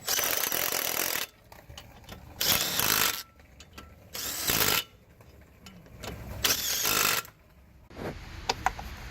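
A power tool run in four short bursts of about a second each, driving bolts home while the brake assembly is put back together.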